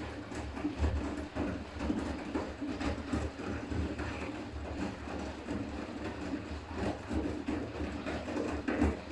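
Siemens iQ500 front-loading washing machine's drum turning during the final rinse: wet laundry and water sloshing and thudding irregularly over a steady motor hum.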